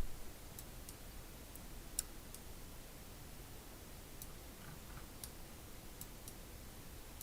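Faint, scattered computer mouse clicks, about eight at uneven spacing, the sharpest about two seconds in, over quiet room hiss.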